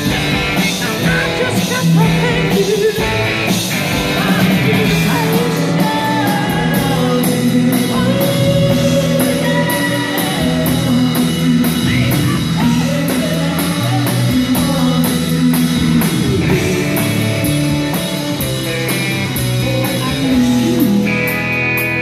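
Live rock band playing: electric guitars, a drum kit and a keyboard, with a man singing into a microphone.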